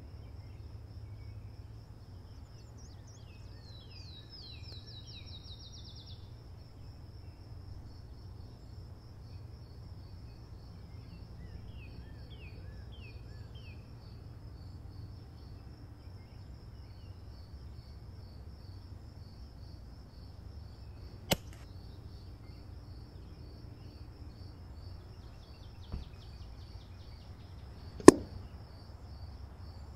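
Outdoor background with a steady low hum, a faint high pulsing tone and a few short bird chirps. Near the end comes one sharp, loud report with a brief ring: the shot of an EDgun Leshiy 2 air rifle in 9mm. A fainter sharp click comes about seven seconds before it.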